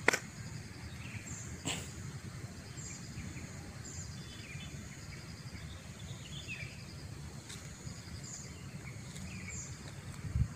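Outdoor ambience of small birds chirping in short high calls over an insect trilling steadily, with a low rumble underneath. A sharp click right at the start and another about two seconds in, and a low thump near the end.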